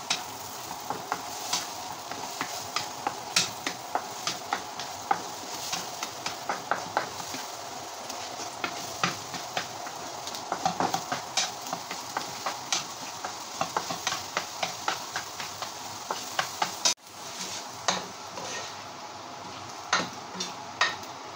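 Eggs sizzling in a hot non-stick frying pan while a wooden spatula scrapes and taps against the pan many times, scrambling them. Near the end, after a brief break, utensil clicks and scrapes go on as vermicelli is stirred in a pot.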